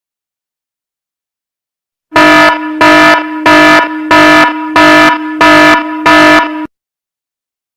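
Air horn sound effect: seven loud blasts on one steady pitch, about one and a half a second, starting about two seconds in and cutting off suddenly.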